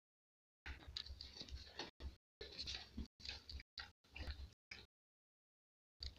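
Faint, irregular crunching and clicking of a pig chewing fodder of azolla and napier grass, broken by stretches of dead silence near the start and near the end.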